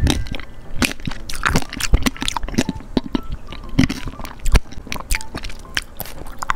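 The hard candied sugar shell of a red kiwi tanghulu crunching and cracking as it is chewed right at a clip-on microphone held to the mouth, in many irregular crackles and clicks.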